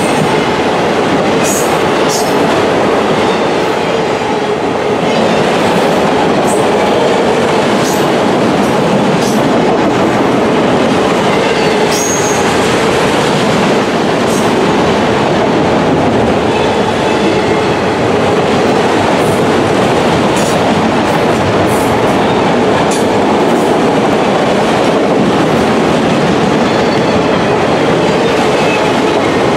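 CSX autorack freight cars rolling past at close range: a loud, steady noise of steel wheels running on the rails, with short high-pitched squeals from the wheels here and there, one held briefly about twelve seconds in.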